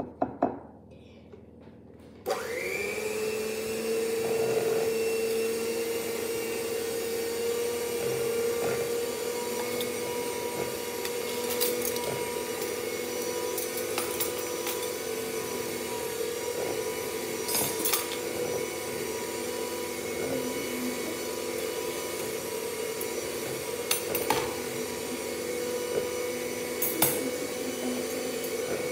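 Electric hand mixer beating cupcake batter: after a few knocks at the start, the motor switches on about two seconds in, its whine rising briefly and settling into a steady hum, with occasional clicks of the beaters against the bowl.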